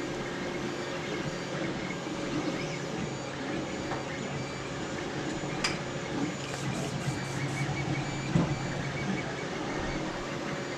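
Creality LD-001 resin printer running steadily with a fan-like hum, switched on and still starting up. One faint click about halfway through.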